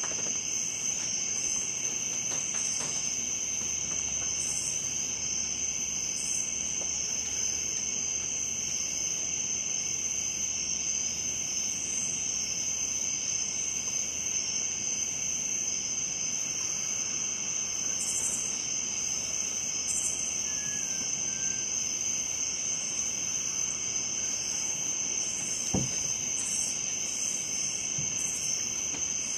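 Night chorus of crickets and other insects: a steady high trill over a second, lower steady buzz, with occasional short higher buzzes. A single short thump comes near the end.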